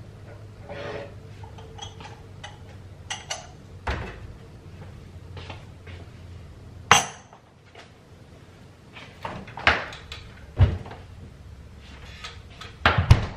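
Kitchen handling sounds: scattered knocks and clinks of a ceramic citrus juicer and other kitchenware on a countertop. A sharp clink comes about seven seconds in, and a cluster of heavier knocks near the end is the loudest.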